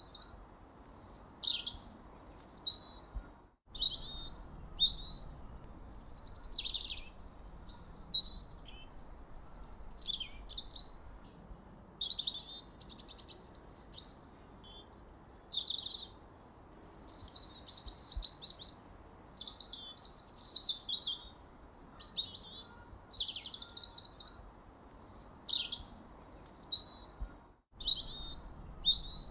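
Songbirds chirping and singing continuously in quick, varied phrases over a faint steady background hiss. The whole sound cuts out for an instant twice, about four seconds in and near the end.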